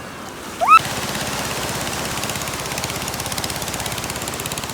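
A short rising whistle-like tone, then a small engine starts up close by and runs with a rapid, steady putter.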